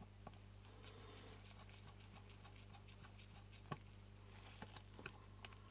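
Near silence over a steady low hum, broken by faint small clicks of a tiny screw and screwdriver being worked into a lens shutter assembly: one clearer click partway through and a few light ticks near the end.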